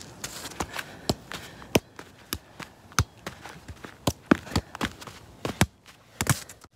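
A size-4 football kicked up again and again in a run of keepy-uppies: a quick, uneven series of sharp taps of foot on ball, about two to three a second.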